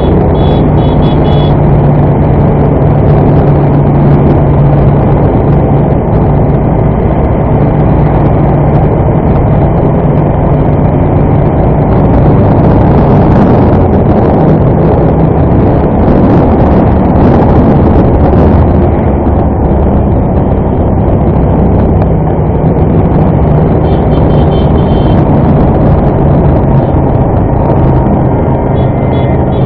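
Aprilia motorcycle engine running at road speed, heard from the rider's seat, under heavy wind rush on the microphone. The engine note is steady at first, wavers with the throttle through the middle, then settles again.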